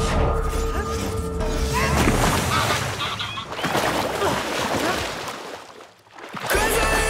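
Film soundtrack: orchestral music, then a few seconds of ice cracking and smashing with churning water as a character plunges through into icy water. The sound briefly falls away before the music swells back near the end.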